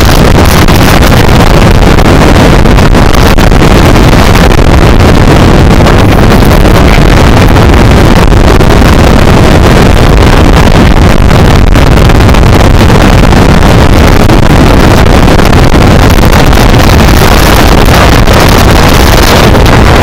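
Storm-force wind gusts blasting across the microphone on the open deck of a boat under way in rough sea. It is a constant, even rush of noise, so loud it overloads the recording.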